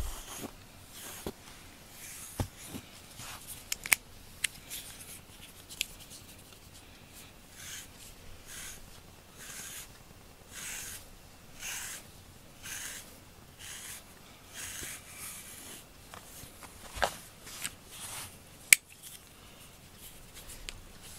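FURminator deshedding tool raked through a long-haired cat's fur in repeated strokes, a soft rasping about once a second, with a few sharp clicks between them.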